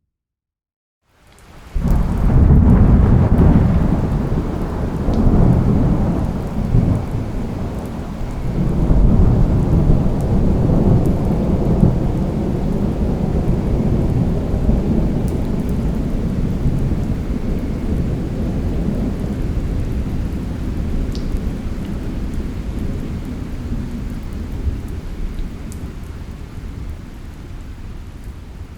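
A sudden thunderclap about a second and a half in, then a long deep rumble of thunder that swells twice more and slowly dies away, with rain falling steadily underneath.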